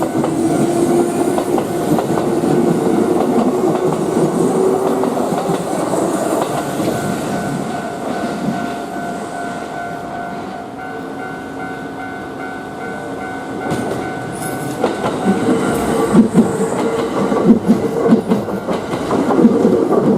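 Kintetsu electric train passing a level crossing, its wheels clattering over the rail joints, with a motor whine rising in pitch over the first few seconds. The clatter eases off mid-way, then comes back louder and more rapid in the last third, and steady warning tones from the crossing sound under it.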